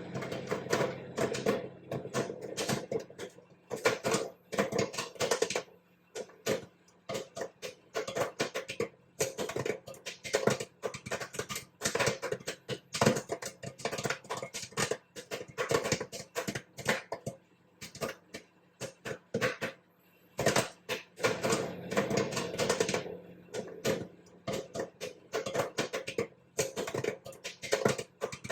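Popcorn popping: rapid, irregular pops that come in dense flurries with short lulls between them, over a faint steady hum.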